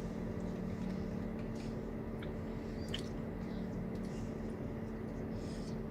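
Steady low background hum with a faint held tone, and a few faint soft clicks.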